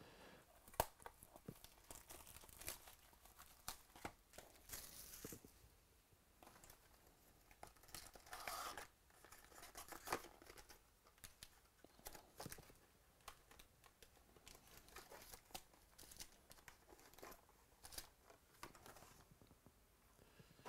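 Faint, scattered tearing and crinkling of plastic wrap and foil card packs, with small clicks, as a sealed box of Panini Essentials basketball cards is opened and its packs are taken out.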